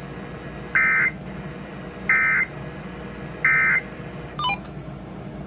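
EAS/SAME end-of-message data bursts from a NOAA Weather Radio broadcast, played through a Uniden BC370CRS scanner's speaker. Three short, harsh buzzing bursts come about 1.3 s apart, marking the end of the alert, over a steady radio hiss. About a second after the last burst there is a brief stepped electronic blip.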